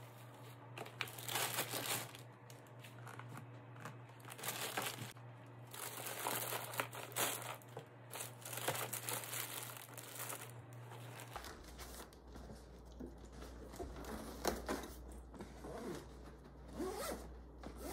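Thin plastic grocery bag rustling and crinkling as a packed lunch is handled and stuffed into a backpack, with the backpack's zippers being pulled in short rasps.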